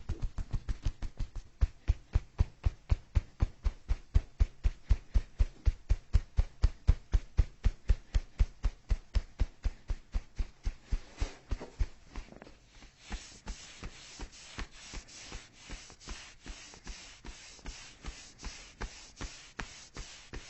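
Rhythmic percussive massage strikes on the body, about three to four a second. They are deep, heavy thuds at first and turn lighter and sharper about twelve seconds in, then stop suddenly at the end.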